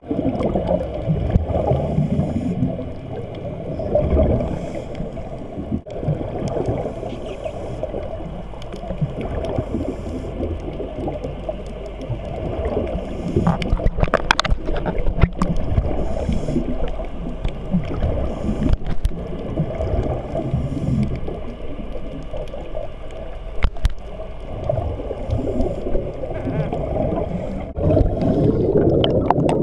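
Muffled underwater rumble and gurgling of scuba divers' exhaust bubbles, heard through a GoPro Hero 3 Black's waterproof housing. A few sharp clicks come around the middle, and the bubbling gets louder near the end.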